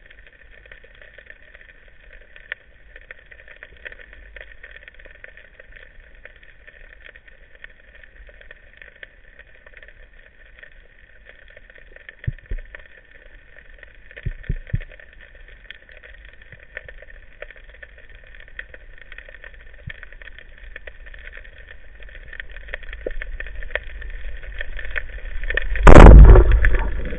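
Underwater, a steady low background noise with a few faint clicks, building over the last few seconds. Near the end comes one loud, sharp crack as an Omer Camu 95 band-powered speargun fires its shaft, followed by continued noise.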